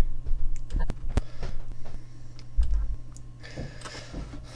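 Computer keyboard being typed on, a quick run of key clicks in the first couple of seconds, then a few scattered keystrokes, over a steady low hum.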